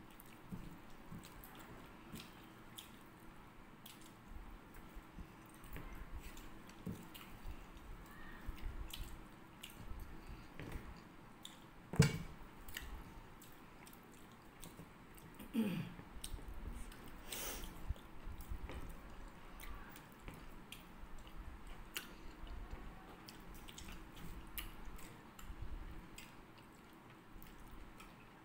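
People chewing and biting food eaten by hand, with many small clicks throughout and one sharp knock a little before halfway.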